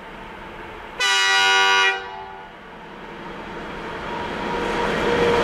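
2M62UM diesel freight locomotive sounding its horn in one blast about a second long, followed by the noise of the approaching train growing steadily louder.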